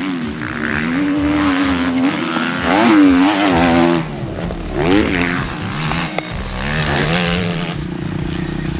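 Motocross dirt bike engine revving up and easing off as the bike rides the dirt track, with quick rises in revs about three and five seconds in.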